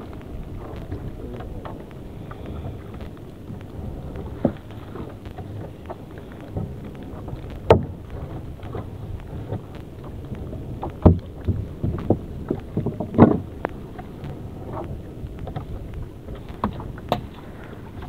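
A monofilament gill net being hauled by hand into a small boat: scattered knocks and thumps, more of them in the second half, over a steady low rumble of wind and water around the hull.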